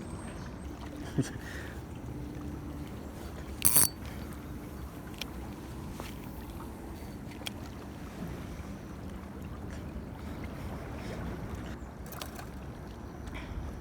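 Steady low rumble of a small fishing boat moving on the river, with a faint hum. A few sharp clicks, the loudest a little under four seconds in.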